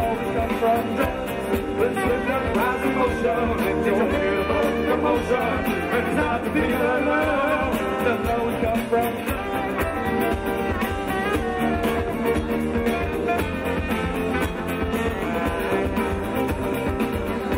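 Live band playing an instrumental passage with no singing: bowed fiddle, strummed acoustic guitar, saxophone, bass, keyboard and drums.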